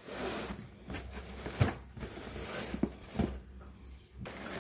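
Cardboard box flaps and shredded straw-like packing fill rustling as they are handled, with a few short knocks.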